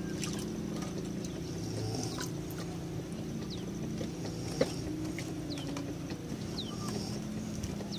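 A boat engine drones steadily, with short falling bird chirps over it and one sharp click a little past halfway.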